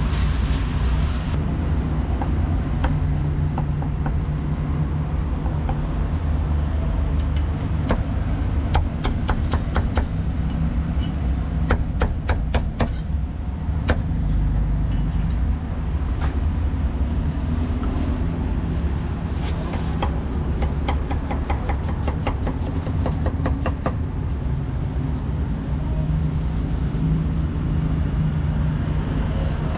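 Heavy cleaver chopping meat and cucumber on a thick wooden chopping block, in quick runs of sharp knocks at about five a second. Under it runs a steady low rumble of street traffic.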